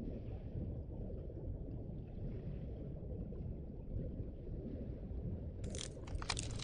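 A steady low rumbling noise, then about five and a half seconds in a sudden crackling crash as ice breaks off a glacier face and falls into the water.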